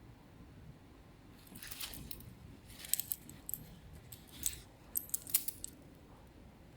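Metal watch bracelet links clinking and jingling as the watch is handled, in several short clusters of sharp metallic clicks.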